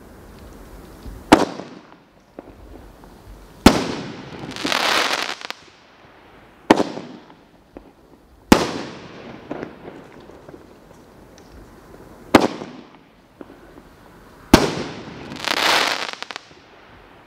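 Aerial shells from a consumer firework cake bursting: six sharp, loud bangs a few seconds apart. Two of them are followed by about a second of dense crackling from crackle stars.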